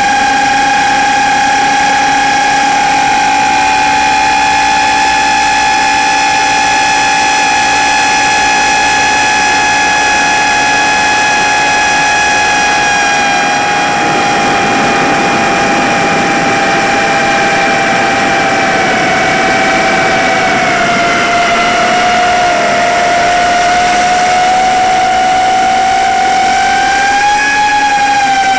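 A 4-inch FPV quadcopter's brushless motors and propellers whine in flight with a steady high pitch. The pitch sags in the second half and then climbs back near the end as the throttle changes.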